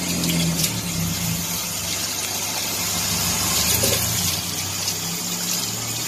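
Water running from a garden hose onto a dog's wet, soapy coat, over a steady low hum.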